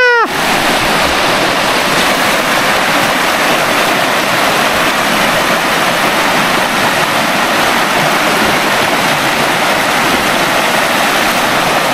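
Stream water rushing down a natural rock waterslide, a steady, unbroken noise.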